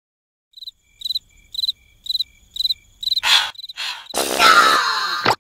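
Cricket chirping in short high chirps about twice a second. About three seconds in, a breathy burst, then a loud cartoon vocal sound from a larva character with falling pitch that cuts off suddenly.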